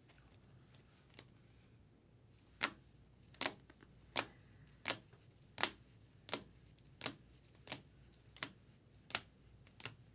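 Rigid plastic toploaders clicking against one another as a stack of trading cards is flipped through one card at a time. Sharp clicks come about once every three-quarters of a second, starting about two and a half seconds in.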